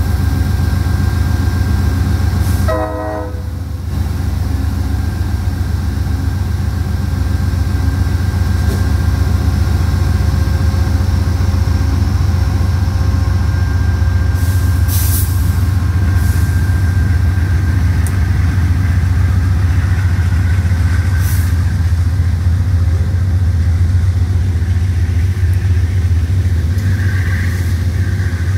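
Amtrak passenger train starting to pull out of a station: a steady low rumble of the diesel locomotives with the cars beginning to roll. Two short hisses sound, one about halfway through and one about six seconds later.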